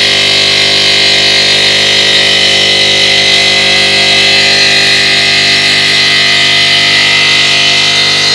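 5-axis CNC stone cutting machine running steadily: a loud, even machine whine made of many steady tones over a strong hiss.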